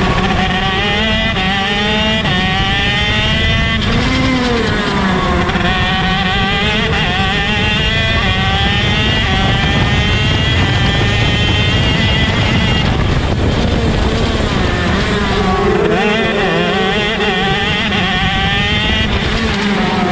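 Shifter kart's 125cc two-stroke engine at racing speed, heard from on board: its pitch climbs repeatedly with short breaks at the gear changes and drops under braking, with other karts' engines close by.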